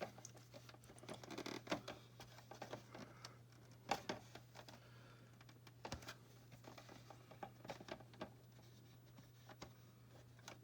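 Faint, scattered clicks and taps of small plastic doll-furniture parts being handled and snapped into place, over a low steady hum.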